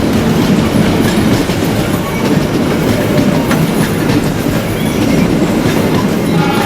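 A train passing close by: a steady loud rumble of wheels on rail with clacking over the rail joints.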